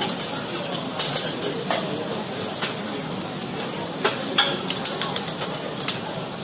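Metal spatula clicking and scraping against a steel teppan griddle in a few irregular sharp strikes, over a steady sizzle of okonomiyaki frying on the hot plate.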